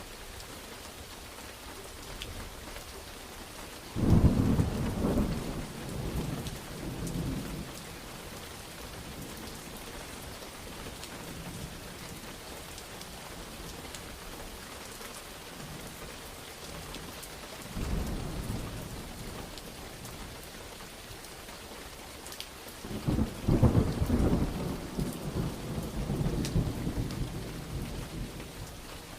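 Steady rain with thunder rolling three times. A sudden clap about four seconds in rumbles on for a few seconds, a weaker rumble follows midway, and a long rolling peal, the loudest, comes near the end.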